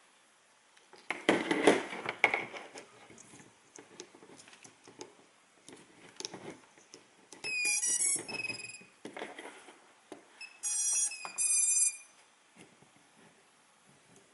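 Handling clatter about a second in, then the Furibee X140 quadcopter plays two short runs of electronic startup tones, a few stepped notes each, as its battery is plugged in to power it up.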